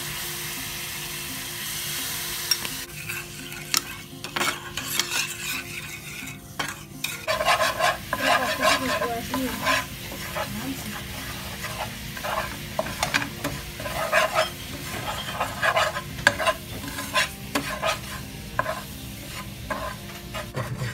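Sugar and water sizzling in a pan on a gas flame with a steady hiss. About three seconds in, this gives way to a steel spoon stirring bubbling caramel in a non-stick pan, with quick irregular scrapes against the pan.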